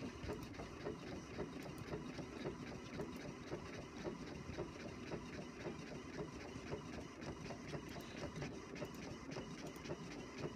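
All-in-one printer-scanner running, its mechanism giving a steady run of fast, even clicks.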